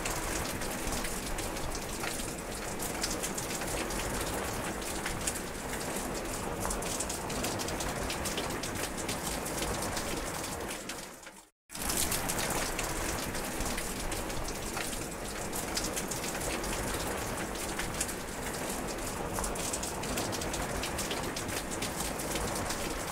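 Steady rain falling: a dense hiss with many close individual drops ticking through it. About halfway through it fades and cuts to silence for a split second, then comes back at full level.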